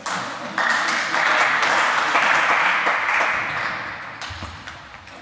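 Table tennis rally: the ball clicking off bats and table in quick succession, each hit ringing on in a large, echoing sports hall.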